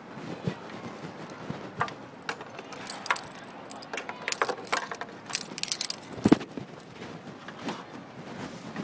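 Handling noise on the recording device: irregular rustles and clicks, with one louder knock about six seconds in.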